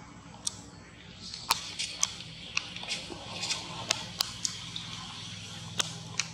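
A monkey chewing crunchy fruit: irregular sharp clicks and crunches, over a steady low hum.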